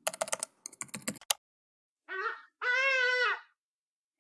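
Quick keyboard typing clicks for about a second, then after a short pause two pitched animal calls: a short one, then a longer, held one.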